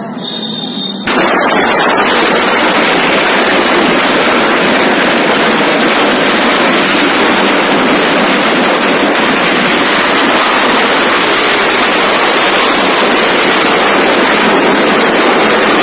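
A long string of firecrackers going off as one continuous, very loud, dense crackle, starting about a second in.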